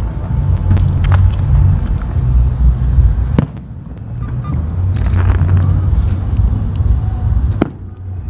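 Fireworks display bursting overhead: a steady low rumble of shells, broken by sharp cracks about three times.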